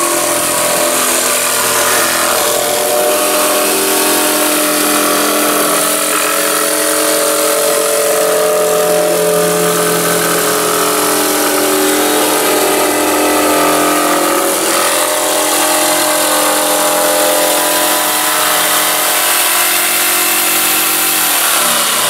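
Corded electric jigsaw running and cutting through a plywood panel: a steady motor whine with the rasp of the reciprocating blade. The pitch drops near the end as the saw slows.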